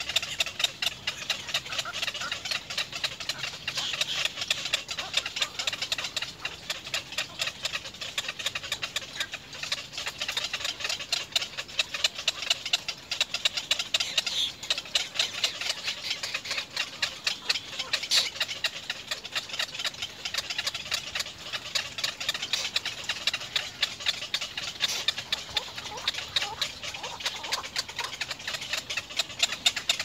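Little egret chicks begging in the nest: a continuous, rapid clicking chatter of many calls a second.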